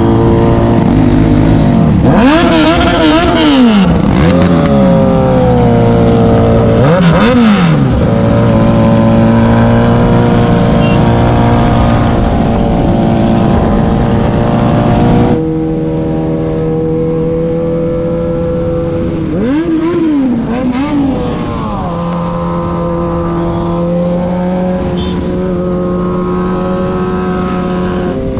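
Motorcycle engines of a group ride running at speed, with a steady drone and wind rush. Bikes rev up and down several times, with rising and falling sweeps near the start, about seven seconds in and again about twenty seconds in. The overall level drops suddenly about halfway through.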